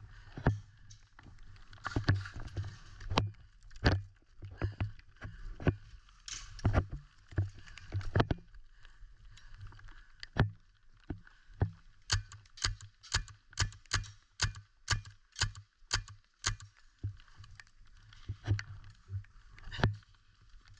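Footsteps on the ground with clothing and gear rustling: irregular steps at first, then a steady walking rhythm of about two to three steps a second from about twelve seconds in, which stops briefly near the end.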